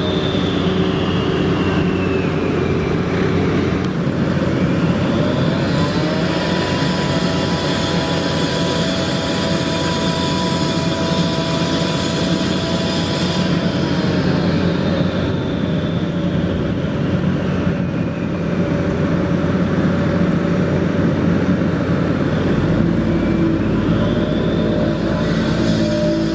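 Heavy diesel construction machinery running. The engine note rises about five seconds in and holds with a steady whine, then drops back around fourteen seconds. A deeper low rumble joins near the end.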